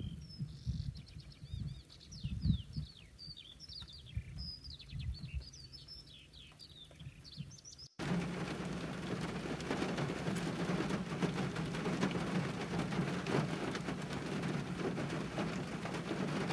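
Songbirds chirping over gusts of wind on the microphone. About eight seconds in, a cut to a steady hiss of heavy rain with a low hum underneath.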